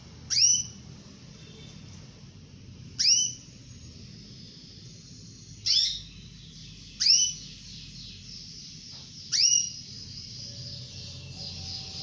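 Female canary calling to a male: five short, loud rising call notes, each sweeping up and levelling off high, spaced two to three seconds apart. Fainter twittering comes in near the end.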